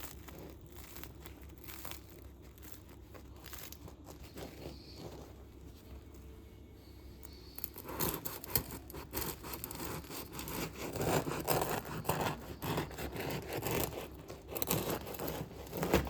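Rustling and scraping handling noises with many small irregular clicks and knocks, faint at first and busier and louder from about halfway.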